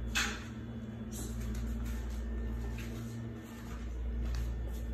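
Steady low background hum with a faint steady tone above it, and a few brief light rustles or clicks, one just after the start and one about a second in.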